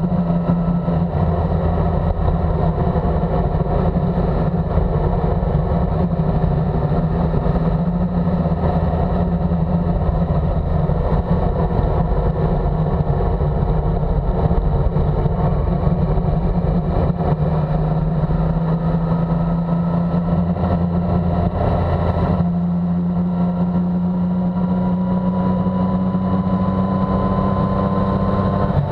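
Motorcycle engine running at road speed under wind noise, with a shift in the engine note about two-thirds of the way through, then a slowly rising pitch near the end as it speeds up.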